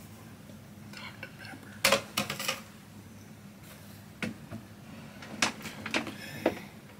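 Sharp clicks and knocks of takeout food packaging being handled: a quick cluster about two seconds in, then single taps spaced through the rest.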